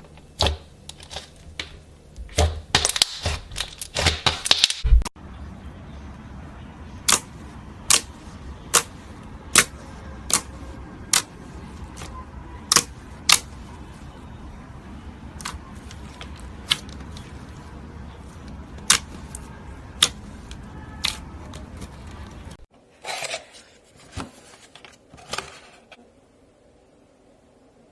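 Slime being played with by hand, making sharp pops and crackles. First comes a dense crackly run, then single sharp pops about once a second over a steady hum, and then, after about 23 seconds, a few brief crinkly bursts.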